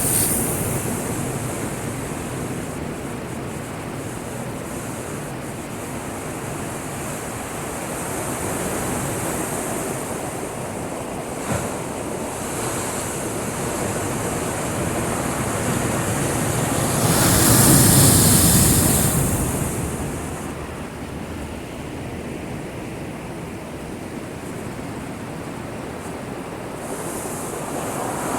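Heavy surf from a typhoon swell: waves breaking against a breakwater in a steady rush, with one big wave surging loudest about two-thirds of the way through.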